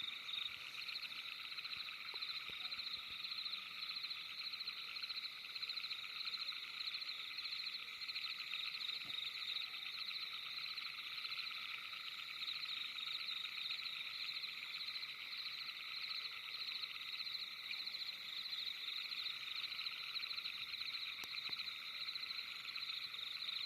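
Dense night chorus of many frogs trilling together: rapid pulsed calls that overlap into a steady layered drone, with some calls higher-pitched and some lower.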